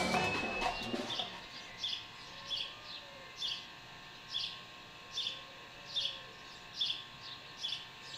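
A songbird chirping, one short high call repeated at a steady pace a little more than once a second. Drum music fades out in the first second.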